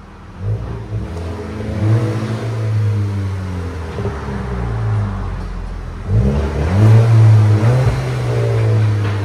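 Exhaust of a 2017 Audi Q3's 2.0-litre turbocharged four-cylinder, with the rear muffler deleted and the factory converter and resonator kept, close at the tips as the engine is revved. Revs rise about half a second in and hang there. Near six seconds in, a second, higher rev is held briefly before falling back.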